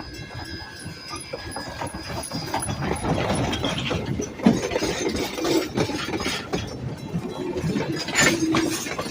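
A steam train's whistle fades out over the first couple of seconds. Then the train cars take over, rattling and clattering over the track in a rough, irregular run of knocks that grows louder from about three seconds in.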